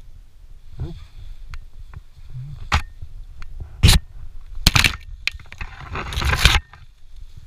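Tree branches cracking and leaves rustling against a rope jumper as he is lowered on the rope into the treetops. There are a few sharp cracks, then a longer burst of rustling and scraping near the end, over a low rumble of wind on the microphone.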